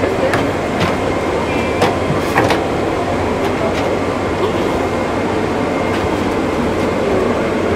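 Steady rumbling noise with a few scattered clicks and faint voices in the background.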